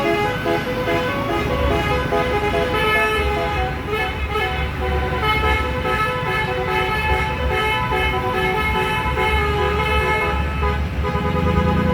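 A bus's 'telolet basuri' multi-tone horn playing a tune, its notes changing several times a second, over a low pulsing rumble.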